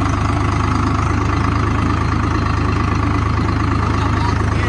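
Diesel farm tractor engine running steadily while the tractor drives along, heard close up from the driver's seat, with an even, fast firing beat.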